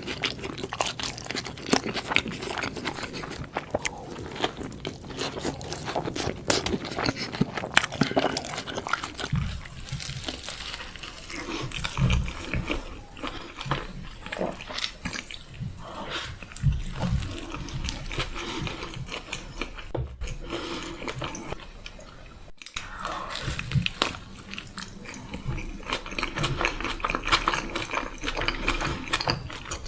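Close-up chewing of a burger sandwich: irregular mouth clicks and smacks, with a few soft low thumps.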